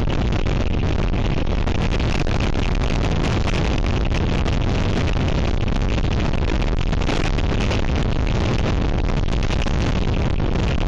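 Gale-force wind blowing hard across the microphone: a loud, steady low rumble with frequent crackles.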